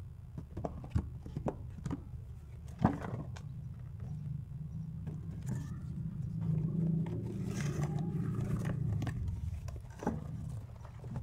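A cardboard box being opened by hand: flaps and packaging rustling, with scattered knocks and clicks, the loudest about three seconds in. A low rumble swells through the middle and fades again near the end.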